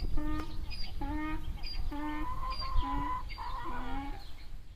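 Donkey braying: a run of repeated hee-haw calls, a little more than one a second, with a longer, higher-pitched note partway through.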